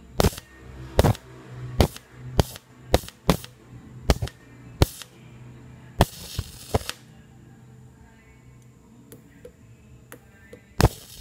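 High-voltage sparks from a CRT TV flyback transformer driven by a ZVS circuit: about eight sharp snaps in the first five seconds, then a sustained arc hissing for about a second. A few faint ticks follow, and there is one loud snap near the end.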